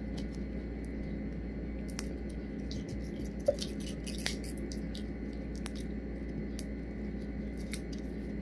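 Soft handling sounds as rope tape is wrapped around a magnet-fishing rope: a few small, scattered clicks and rustles over a steady low hum.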